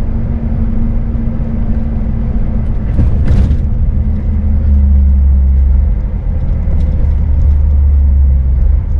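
Scania S500 truck's engine running under way with a steady low rumble, heard from inside the cab. About three seconds in its note drops slightly with a short hiss, and the low rumble then grows louder.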